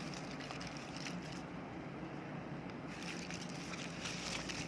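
Crinkling and rustling of the thin foil sheets of a cut-open phone battery being handled, in scattered crackles that grow busier about three seconds in, over a steady low hum.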